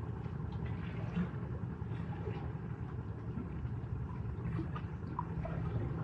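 Sea surf at the shore: a steady low rumble with faint small splashes and hisses on top.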